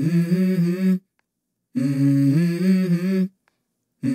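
Background music: a low voice humming a stepped melody in short phrases with brief silent gaps. One phrase ends about a second in, a second runs through the middle, and a third starts near the end.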